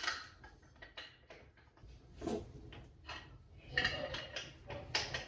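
Clicks and clattering knocks of an angle grinder's metal wheel guard being handled and pushed onto the grinder's gear head, a series of short irregular taps with a few louder ones.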